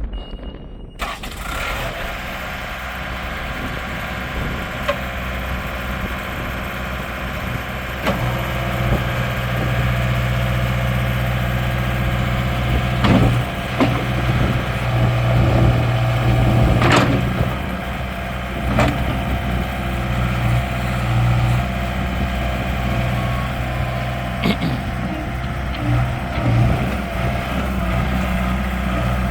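Bobcat S185 skid steer's diesel engine starting about a second in, then running steadily; from about eight seconds in it runs louder and deeper, rising and falling, with a few sharp knocks.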